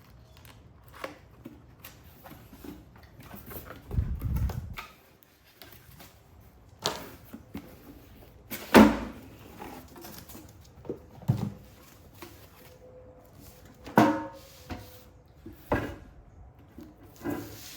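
Small metal toolbox being handled and opened: a string of clicks, knocks and clunks as latches and drawers are worked, the sharpest knocks about nine seconds in and again about fourteen seconds in, with a low thump around four seconds.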